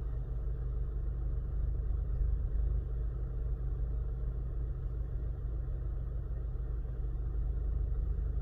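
A 2009 Chevy Cobalt's four-cylinder engine idling with a steady low rumble. The engine has a slight cylinder 3 misfire (code P0303).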